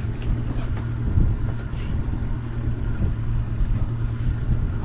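Boat engine running steadily at low trolling speed, a continuous low hum, with a few light knocks and a short scuffing noise about two seconds in.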